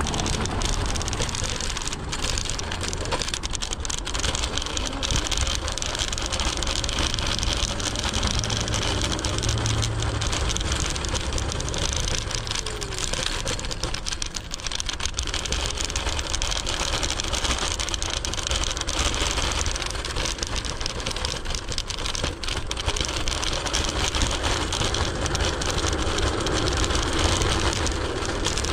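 Steady street noise heard while riding a Segway Ninebot ES4 electric scooter: tyres rolling over the road and surrounding car traffic, with a constant deep rumble.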